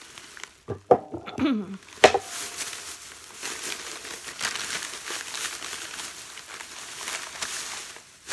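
Thin plastic shopping bag rustling and crinkling as items are dug out of it. There are a few sharp knocks in the first two seconds, and the crinkling runs on steadily after that.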